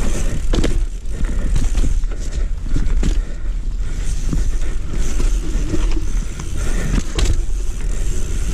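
Ragley Big Al hardtail mountain bike riding down a dirt trail: tyres rumbling over the ground with frequent knocks and rattles from the bike over bumps, and wind buffeting the microphone as a deep steady rumble.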